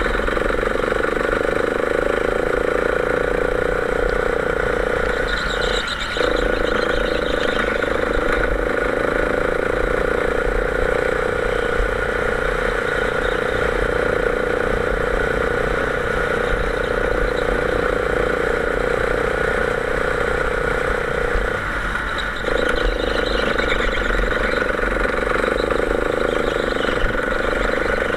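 Go-kart engine running at steady high revs, heard from the driver's seat, dipping briefly twice, about six seconds in and again about twenty-two seconds in.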